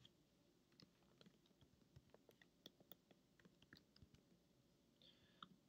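Faint, irregular keystrokes on a computer keyboard as text is typed in, against near silence.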